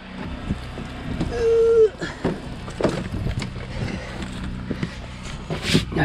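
Footsteps crunching through deep snow over the steady hum of a portable generator running, with a brief held tone about a second and a half in. Near the end come sharp clicks and knocks as a pickup truck's door is opened.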